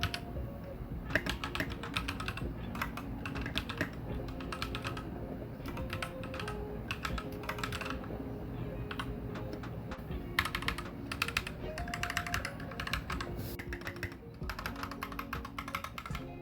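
Typing on a Magic Refiner MK31 65% mechanical keyboard with linear white switches: rapid key presses in runs with short pauses, without the click of blue switches. Background music plays underneath.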